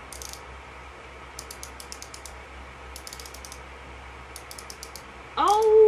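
Quick runs of small plastic clicks from the twist collar of a Maybelline Anti-Age Eraser concealer being turned to push product up to the sponge tip. Near the end comes a louder held whine-like tone that rises at first, then stays level for about a second.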